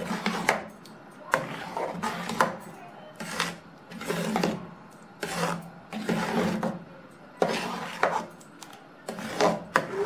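A metal ladle stirs thick urad dal porridge in an aluminium pot, scraping around the pot in strokes about once a second. Some strokes carry sharp clicks where the ladle knocks the side of the pot.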